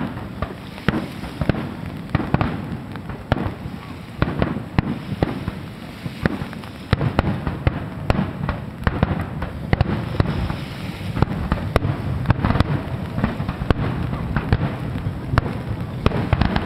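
Aerial fireworks exploding in quick succession, a dense run of sharp cracks and booms, several a second, each echoing away over a continuous rumble.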